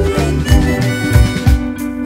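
Background music: sustained instrumental notes over a drum beat, with the drums dropping out near the end.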